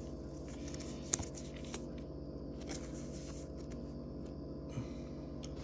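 Steady low hum of room tone with a few faint taps from trading cards being handled.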